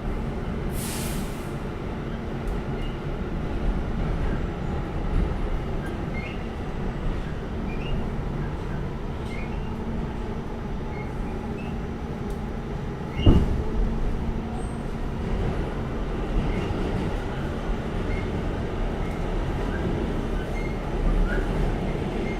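R46 subway train running along the track, heard from inside the car: a steady rumble, with a short hiss about a second in and one sharp, loud bang about thirteen seconds in.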